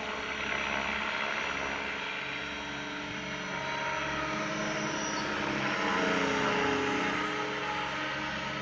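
Three Align T-Rex RC helicopters (500, 600 and 700 sizes) flying together: a layered rotor and motor whine whose pitches drift up and down as they manoeuvre, a little louder about six seconds in.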